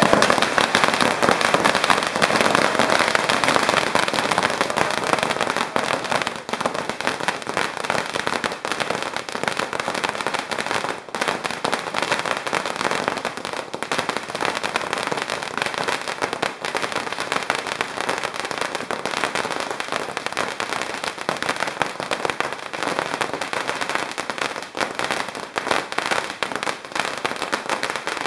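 A long string of Chinese firecrackers going off in one continuous rapid crackle of bangs, loudest in the first few seconds.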